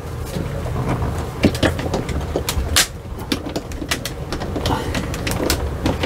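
Hands working the front drawer of a waterfall spray booth loose: a low rumble of handling with an irregular string of sharp knocks and clicks.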